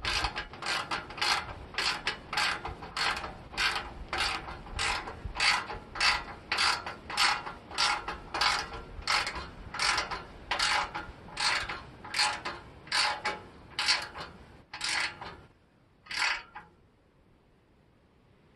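Socket ratchet wrench clicking in steady back-and-forth strokes, about two clicks a second, as a motorcycle exhaust clamp bolt is tightened down. The clicking stops a few seconds before the end.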